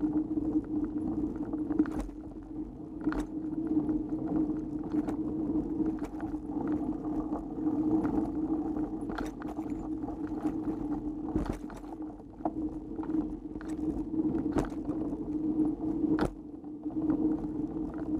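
Mountain bike rolling fast along a dirt trail: a steady tyre hum with frequent clicks, rattles and knocks as it goes over bumps, a few of them sharper.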